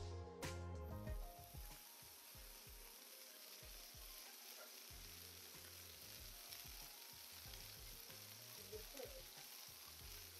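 Smash burger patties sizzling on a hot flat-top griddle, a faint, steady frying hiss. Background music fades out in the first second or so.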